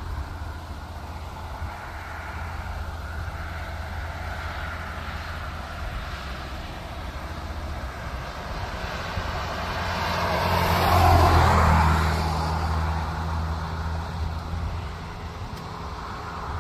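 A road vehicle passes on the highway, its tyre and engine noise swelling to a peak about eleven seconds in and then fading, over a steady low rumble.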